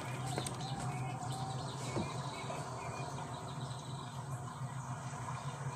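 Quiet room sound: a steady low hum under faint, short high chirps, with a couple of light knocks.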